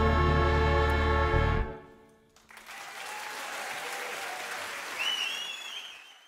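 A wind band with rock band holds a final sustained chord that cuts off about one and a half seconds in. After a brief pause the audience breaks into applause, with a wavering whistle from the crowd near the end, and the sound fades out.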